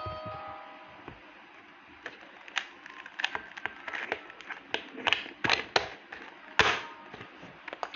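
A short tone right at the start, then from about two seconds in a run of irregular sharp clicks and taps, a few a second.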